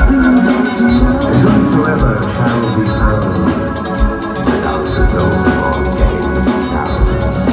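Live dance-band music played loud over a concert PA, with a steady drum beat.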